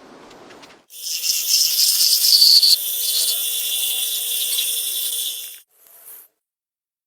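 A steady, high hiss that starts about a second in and stops suddenly about four and a half seconds later.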